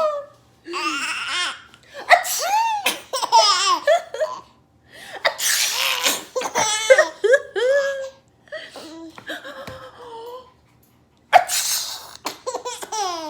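Baby laughing in repeated bursts of belly laughs and giggles, set off by an adult's pretend sneezes that come as short noisy bursts about three times.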